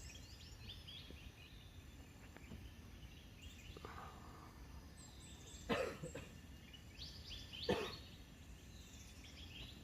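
Birds chirping in a series of short, repeated falling notes over low background noise. Two sharp knocks stand out, about six and eight seconds in.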